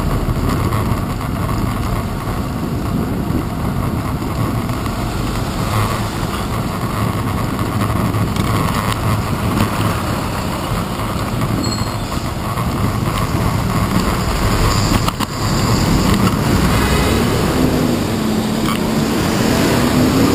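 Steady road and traffic rumble heard from a bicycle's handlebar-mounted camera riding in city traffic. Near the end a coach bus's engine note dips and then rises as the bus pulls alongside and accelerates away.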